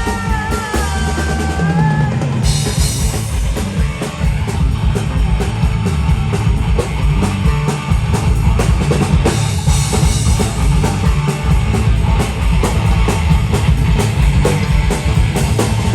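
Live rock band playing, with the drum kit loudest: a steady beat of kick drum, snare and cymbals. A held high note sounds over it for the first two seconds.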